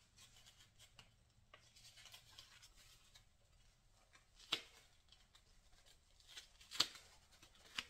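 Faint handling sounds of thin paper sanding discs being sorted and separated by hand: light rustling with a few short, sharp clicks, the clearest about halfway through and near the end.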